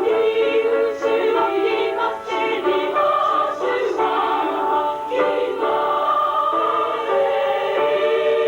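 Music of voices singing a slow melody in long held notes.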